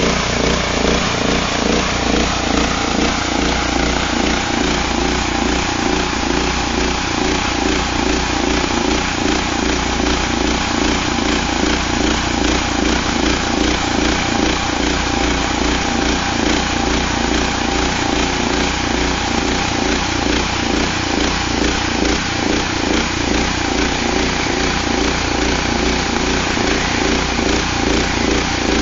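Engine-driven portable band sawmill running steadily, sawing a plank from a log.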